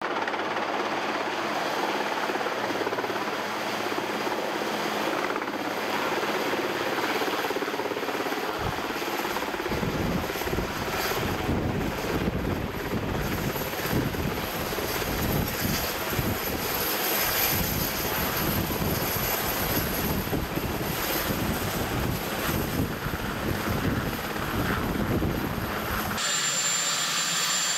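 Marine One helicopter running, its engines and rotor making a loud, steady roar, with a deep pulsing low down from about ten seconds in. Near the end the sound changes abruptly to a thinner noise with a high steady whine.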